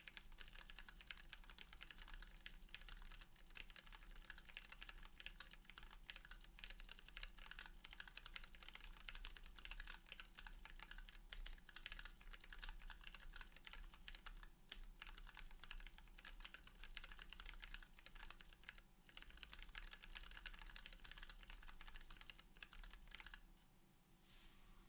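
Continuous typing on a Mechmini2 ortholinear mechanical keyboard with a brass plate, PBT keycaps and lubed linear switches (Tealios stems in Cherry MX Black housings), made up of many rapid keystrokes. The typing stops near the end.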